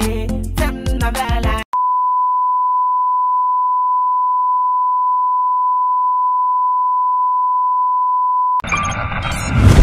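Line-up test tone of the kind played with TV colour bars: one steady, pure beep held for about seven seconds. Music cuts off about a second and a half in, just before the tone, and a film soundtrack with a deep boom comes in near the end.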